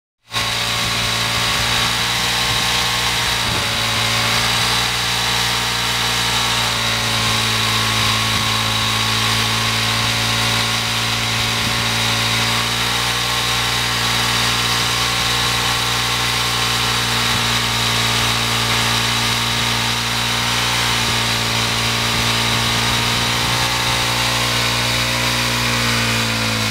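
KTM 640 single-cylinder four-stroke engine held at steady high revs in a stationary burnout, the rear tyre spinning on concrete and smoking. The pitch wavers only slightly as the throttle is held open.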